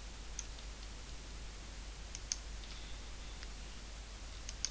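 Faint scattered clicks of a computer mouse and keyboard, about six in all, two of them in quick pairs, over a low steady hum.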